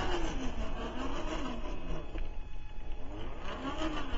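Traxxas TRX-4 1/10-scale RC crawler's electric motor and geared drivetrain whining as it crawls over rock, the pitch rising and falling repeatedly with the throttle.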